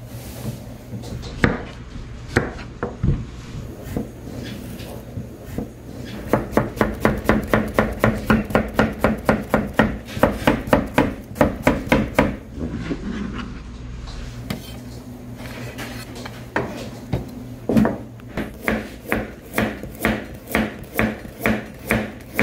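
Chef's knife slicing cucumber and carrot against a cutting board, over a low steady hum. A few scattered knocks come first, then a quick, even run of cuts at about four or five a second. After a pause of a few seconds, another run of cuts goes on to the end.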